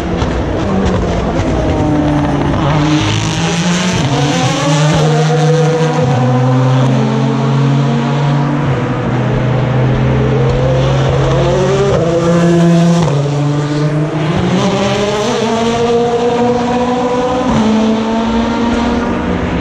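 Endurance race cars braking into a slow corner, their engines dropping in pitch in stepped downshifts, then accelerating away with the pitch rising through upshifts. Several cars follow one another, with a second wave of downshifts about halfway through.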